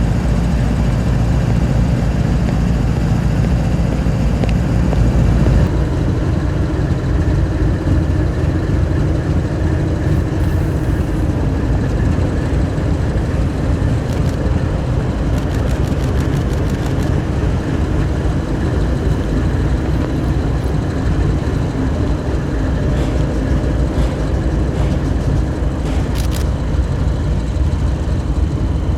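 Diesel locomotive engine running steadily close by, a deep rumble that eases slightly about six seconds in, with a few faint clicks partway through.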